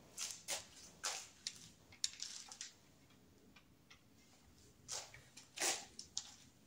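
Soft clicks, taps and light scrapes of a screwdriver being taken up and set to the screws of a motorcycle's handlebar throttle housing: a quick run of small taps in the first couple of seconds, then a few more about five seconds in.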